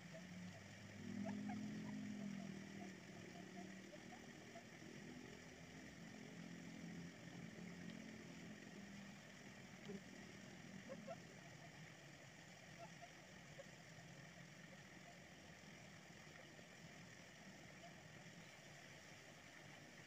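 Near silence: a faint low hum, slightly louder in the first few seconds, with a few faint ticks.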